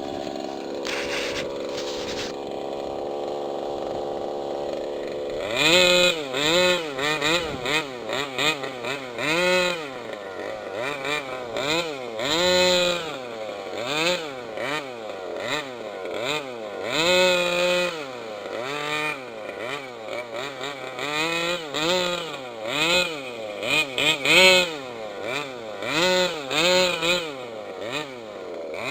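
Small two-stroke engine of a large-scale gas RC car idling steadily, then from about five seconds in revving up and down again and again as the throttle is worked.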